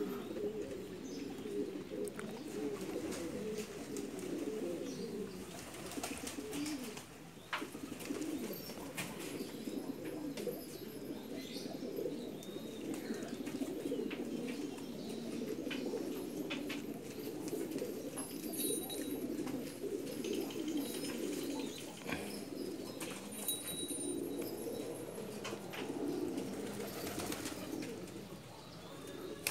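A flock of domestic racing pigeons cooing, many low, warbling calls overlapping without a break.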